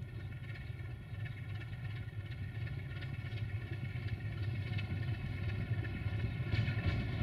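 Romanian 060-DA (LDE2100) diesel-electric locomotive's Sulzer twelve-cylinder engine running as the locomotive approaches slowly while shunting. It is a steady low drone that grows gradually louder.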